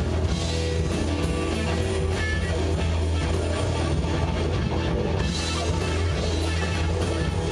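Live rock band playing an instrumental stretch with no singing: distorted electric guitars over a steady drum-kit beat with regular cymbal strokes.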